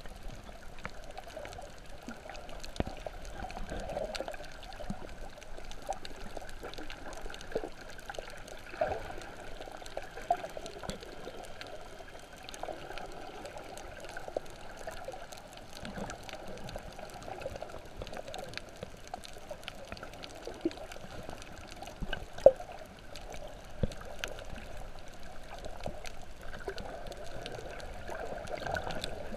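Underwater sound heard through a GoPro's waterproof housing: a steady muffled water noise with many scattered small clicks and crackles, and one sharp knock about three-quarters of the way through.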